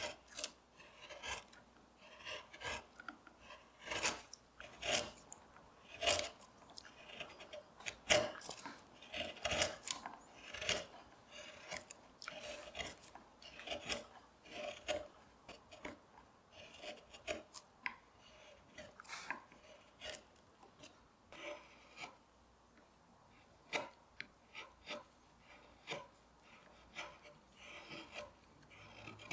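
Hand carving gouge paring shavings from walnut: a run of short, irregular slicing and scraping strokes, one or two a second, with a brief lull about three-quarters of the way through.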